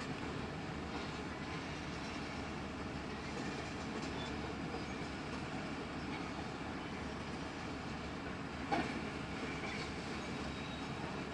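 Freight train tank cars rolling past with a steady rumble of wheels on the rails, and one sharp clank about three quarters of the way through.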